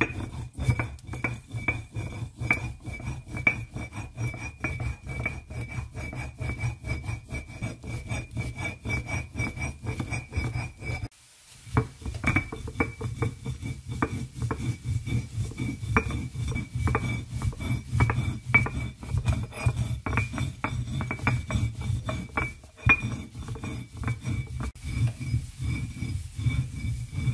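Stone roller worked back and forth on an ammi grinding stone, grinding roasted spice masala: a rapid run of rubbing, grating strokes, broken by a short pause about eleven seconds in.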